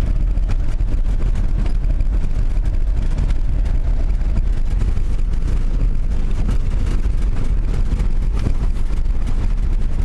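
A vehicle driving, a loud, steady low rumble of engine and road noise.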